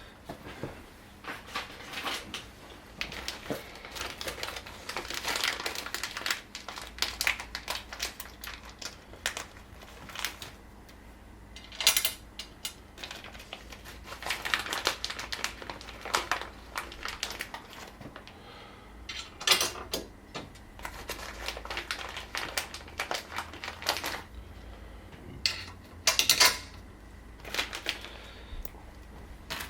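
Hand work with tools and parts: a steady run of small clicks and clinks, with a few sharper knocks about 12, 20 and 26 seconds in.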